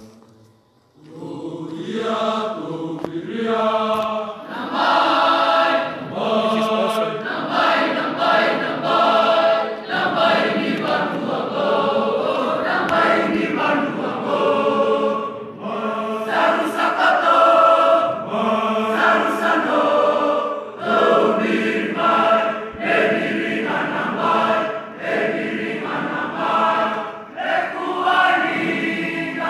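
A large massed choir of students singing a Fijian song in harmony, in a chant-like style on long held notes. The singing starts about a second in.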